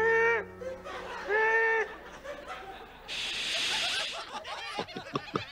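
A man's voice gives two drawn-out, high-pitched 'aah' cries, one right at the start and one about a second later. After a pause there is a short hiss for about a second, then a run of short snickering sounds near the end.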